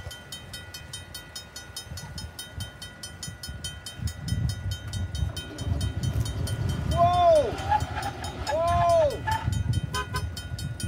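Level-crossing bell ringing rapidly while the rumble of an approaching VIA Rail F40PH diesel locomotive grows louder. Two short horn blasts sound near the middle.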